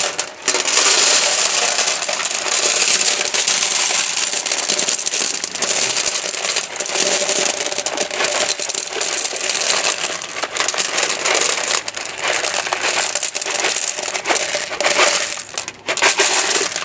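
Fire pit rocks being poured and spread into the gas fire pit's metal burner pan: a continuous clattering rattle of many small stones knocking together and on the metal.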